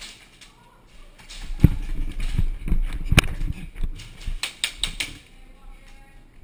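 A series of irregular dull thumps, then a quick run of five or six sharp clicks about two thirds of the way through.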